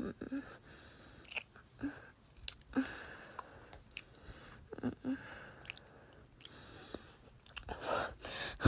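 Close, wet kissing sounds: lip smacks and soft mouth clicks with a few brief hums, growing louder and busier near the end.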